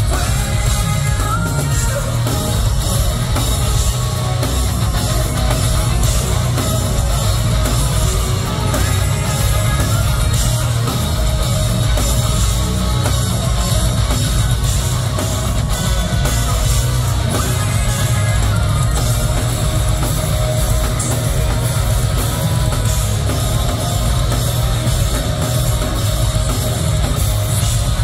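Live rock band playing loud and steady: electric guitars, bass and drum kit with a singer's voice, heard from within the crowd.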